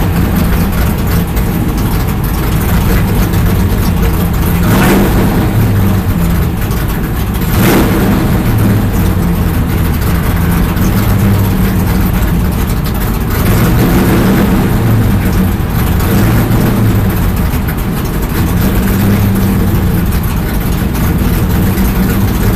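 Stock race car's V8 engine idling loudly while the car sits in gear, waiting to pull out. The rumble rises and falls a little every few seconds.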